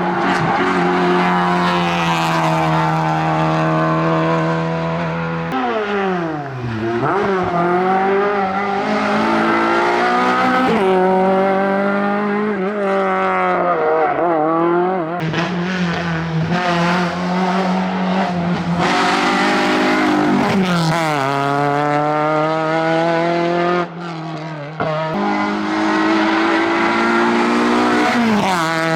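Rally car engines at full throttle on a stage. The pitch climbs through each gear and drops sharply on downshifts and braking, then holds steady between. Several cars are heard in turn, the sound switching abruptly from one to the next.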